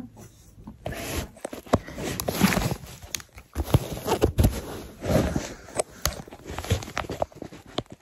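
Close-miked ASMR sounds: a run of irregular sharp clicks and short soft rustling swells, about one to two a second, starting about a second in.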